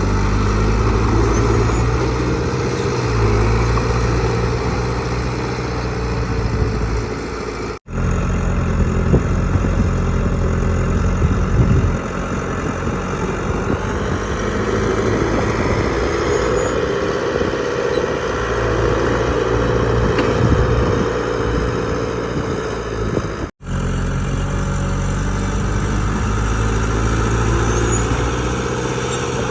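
Diesel engines of heavy earthmoving machinery running steadily under load, the bulldozer and dump truck at work. The sound breaks off sharply twice, at edit cuts.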